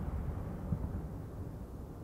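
Low rumbling echo of aerial firework shell bursts dying away steadily, with one faint low thud about three quarters of a second in.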